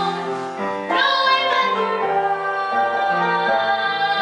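A woman singing a musical-theatre song solo, holding long notes of about a second each over instrumental accompaniment.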